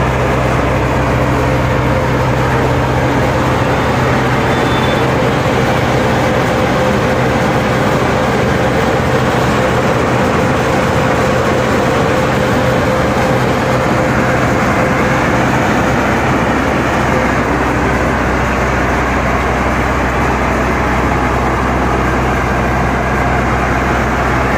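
Garlic bulb breaking machine running steadily, loud and continuous, with a steady low hum under a dense clattering noise as bulbs are broken into cloves.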